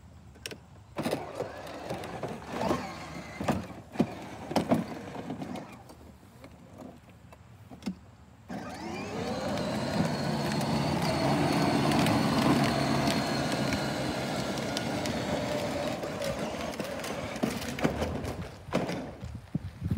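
Battery-powered CAT ride-on toy dump truck driving on concrete. Its electric motor whine rises in pitch as it speeds up about halfway through, then runs steadily with the wheels rumbling, and stops near the end. Before it sets off there is a run of scattered knocks and clatters.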